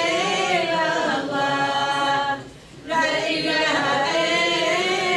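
Elderly woman singing a religious chant unaccompanied, holding long wavering notes, with a short pause for breath about two and a half seconds in.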